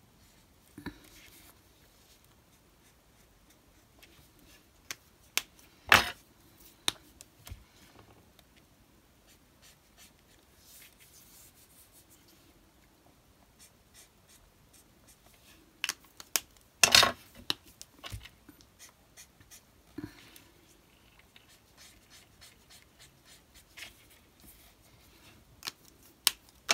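Ohuhu brush marker nib rubbing faintly on small pieces of card as they are coloured. Scattered sharp clicks and clacks of markers and card being handled break in, loudest about six and seventeen seconds in.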